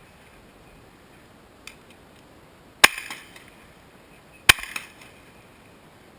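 Double-barrel shotgun fired twice, about a second and a half apart, each shot followed by a brief echo.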